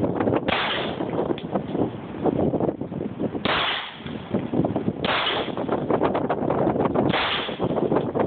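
Four shots from a Taurus PT709 9mm pistol, fired at uneven intervals of about one and a half to three seconds.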